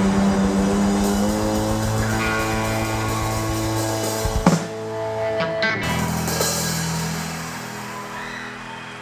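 Rock music with electric guitar and drums: held, ringing guitar chords over a fast low pulse, a loud hit about four and a half seconds in, then sustained chords slowly fading.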